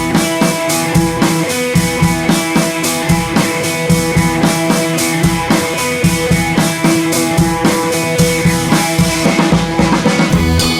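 Background rock music with drum kit and guitar and a steady beat.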